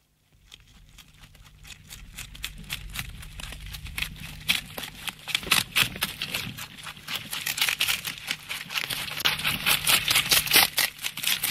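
Comedy sound effect of rabbits eating: a rapid, irregular crunching and crackling that grows steadily louder, with a faint low hum underneath.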